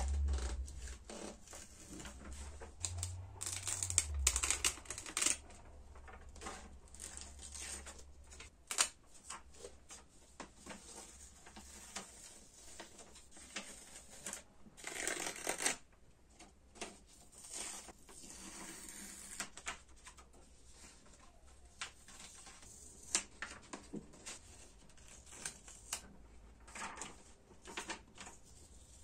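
Paper sheets being pulled off a wall and handled: irregular crinkling and rustling with small clicks, louder about four seconds in and again around fifteen seconds. A low rumble sounds in the first few seconds.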